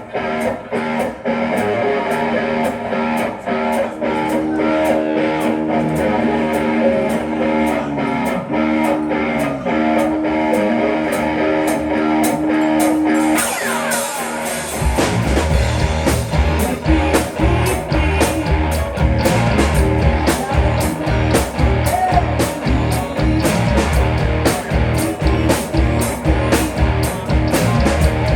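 Rock song intro: guitar over a steady beat, with a bending lead line, then the full band comes in about halfway with bass and drums, louder and fuller.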